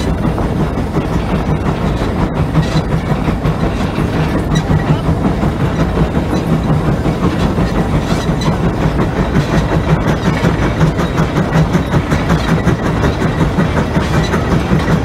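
Steady, rhythmic clatter of a giant multi-bottom plow on the move, drawn through the soil by a steam traction engine.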